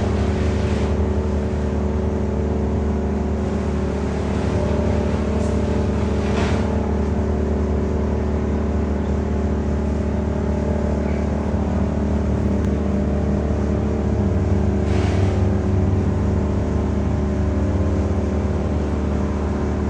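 An engine running steadily at constant speed, with a few brief rushing noises about six and fifteen seconds in.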